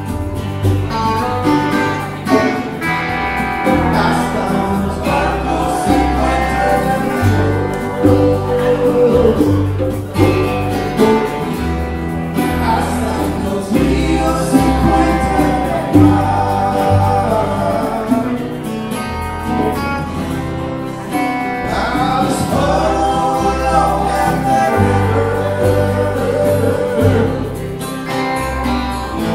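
A small live band playing a song: guitar and plucked upright bass, with a singing voice over them. The bass moves through held low notes about one a second.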